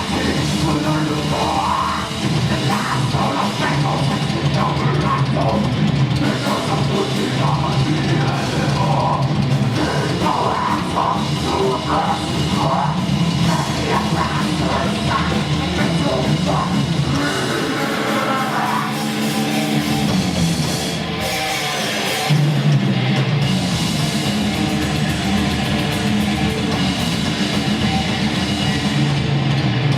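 Heavy metal song with distorted guitars and a pounding drum kit. The low end drops away for a few seconds past the middle, then the full band crashes back in louder.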